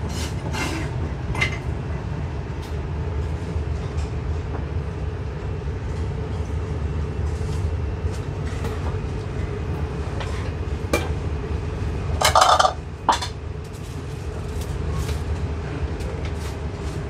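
Steady low rumble of a busy food stall, with scattered light clinks of metal utensils and dishes and a louder clatter about twelve seconds in.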